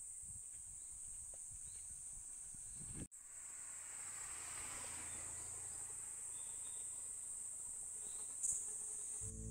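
A steady, high-pitched drone of insects calling in the trees. It cuts out for a moment about three seconds in, then carries on.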